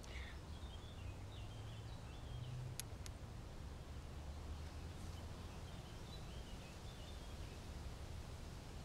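Quiet outdoor ambience: faint birdsong chirps at the start and again about six seconds in, over a low steady rumble, with two faint ticks about three seconds in.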